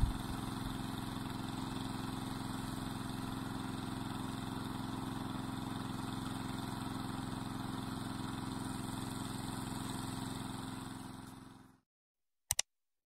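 A small engine running steadily at an even speed, fading out near the end. A single sharp click follows.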